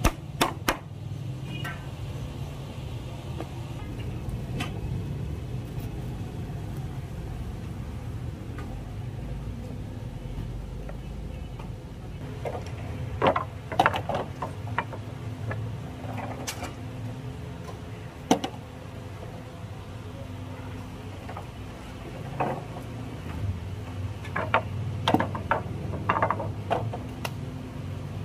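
Two hammer blows on a nail in a wooden plank at the start. Later come clusters of sharp wooden knocks and clacks as loose planks are set down across the rails, over a steady low hum.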